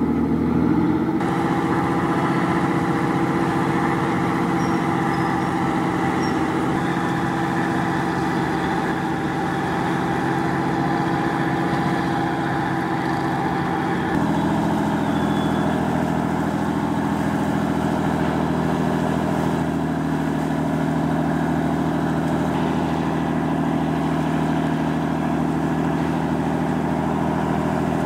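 Passing vessels' engines running with a steady drone of several held tones; the pitch pattern changes abruptly about halfway through.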